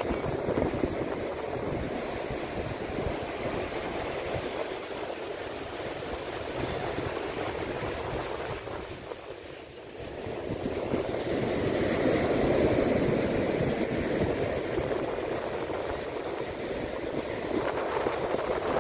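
Ocean surf washing ashore, a steady rush of water that eases to a brief lull about halfway through and then swells again as the next wave comes in.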